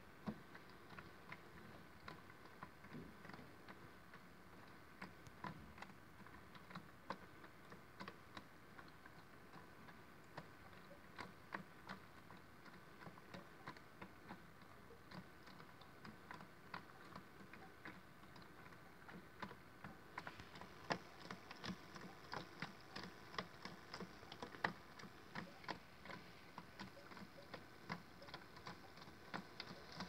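Modified Miele W1 toy washing machine running a rinse, with water in the drum as it turns. A faint small-motor hum runs under many small, irregular clicks and ticks, and a faint higher hiss joins about two-thirds of the way through.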